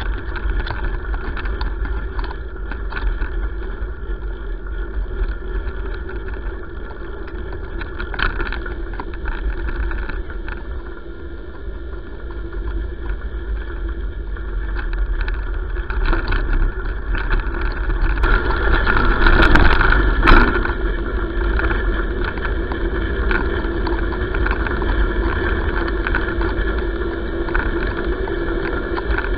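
Wheels of a dog-pulled handlebar rig rolling over a gravel road, picked up through the rig-mounted camera as a steady rumbling rattle with frequent small knocks. It grows louder and rougher for a few seconds about two-thirds of the way through.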